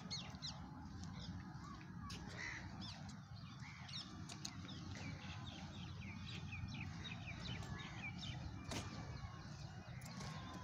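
Birds calling in a busy chorus of many short chirps and calls, over a low steady background rumble.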